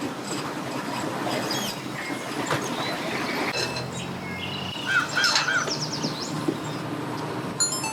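A crow cawing three times about five seconds in, with thin bird chirps just after, over steady outdoor background noise and a faint low hum near the middle.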